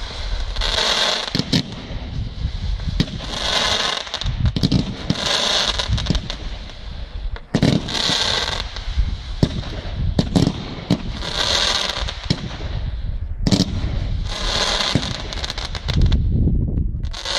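Professional fireworks display: a string of sharp bangs from shells launching and bursting, each burst trailed by about a second of crackling hiss as glittering stars spread, recurring every two to three seconds.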